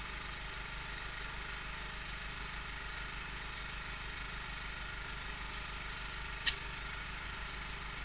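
An engine idling steadily, heard from inside a vehicle's cab, with one short click about six and a half seconds in.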